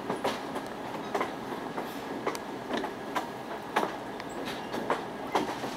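Train wheels clicking over rail joints, a sharp click about twice a second over the steady rumble of the moving train.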